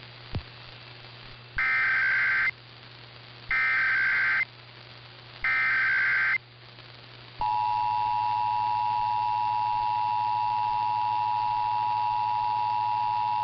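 Emergency Alert System SAME header, three roughly one-second bursts of warbling data tones about two seconds apart, followed about seven seconds in by the EAS two-tone attention signal, which holds steady. Received over AM radio.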